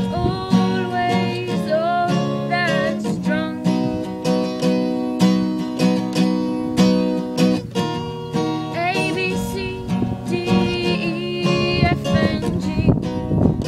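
Music: a song with acoustic guitar strumming steadily under a singing voice.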